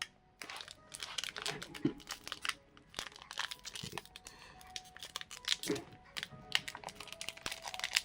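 Foil trading-card booster pack crinkling and crackling as it is handled and torn open by hand, with soft background music underneath.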